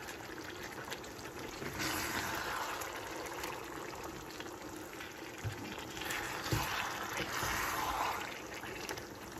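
A wooden spatula stirring chicken pieces through a thick, simmering masala sauce in a speckled nonstick pan: a wet stirring noise that swells twice, with a couple of light knocks of the spatula against the pan.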